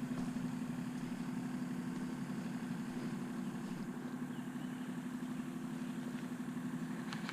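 A steady, even low mechanical hum, like an engine or motor running at idle, that does not change throughout.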